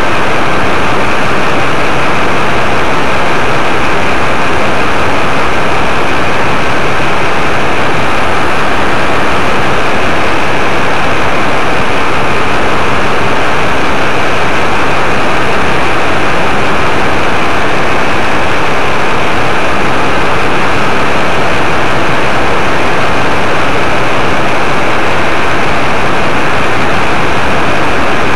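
Paramotor engine and propeller running steadily in flight, mixed with loud wind rush over the microphone, with no change in engine speed.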